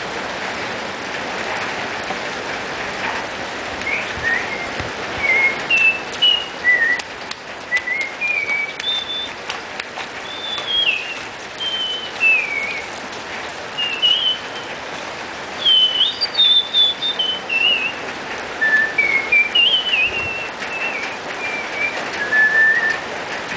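A person whistling a wandering tune in short gliding notes, starting about four seconds in, over the steady hiss of falling rain.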